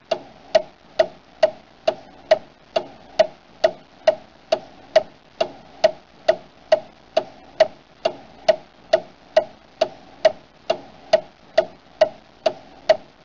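Steady, evenly spaced ticking, a little over two ticks a second.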